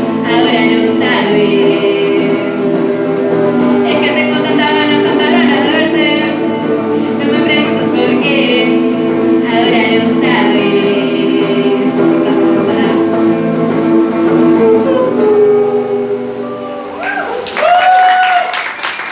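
Live rock band and singer playing the closing stretch of a song in a hall, with long held vocal lines over sustained chords. The music dies away about 16 to 17 seconds in, followed by a few shouts from the audience and the start of clapping.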